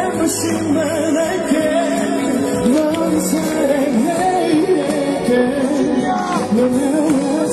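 Live pop song with singing over the band, amplified through a concert sound system.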